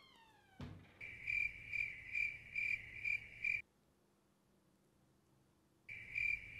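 Cricket chirping used as an 'awkward silence' sound effect: even, high chirps about two a second. It cuts to dead silence for about two seconds and then comes back.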